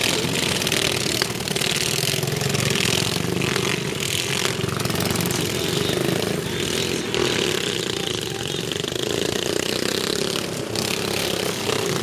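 Several racing ride-on lawn mowers' engines running together as they race, a steady overlapping engine sound.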